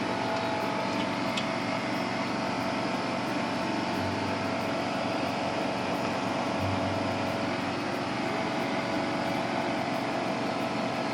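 Steady machine noise: an even rushing sound with a faint steady hum, like a motor-driven machine running without a break.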